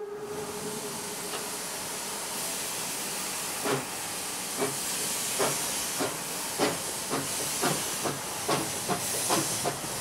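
Two-foot gauge steam locomotive WW&F No. 9 starting a train with its cylinder cocks open: a steady steam hiss, with the last of a whistle tone fading at the start. About four seconds in, exhaust chuffs begin and come faster and faster as the engine picks up speed.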